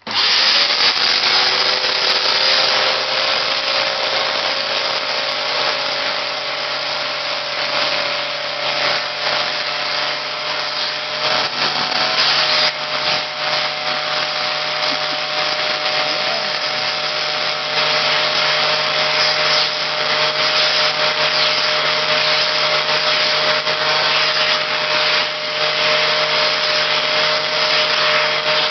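Vacuum cleaner running steadily with a constant motor whine, being worked over a cat's fur as the cat is hoovered.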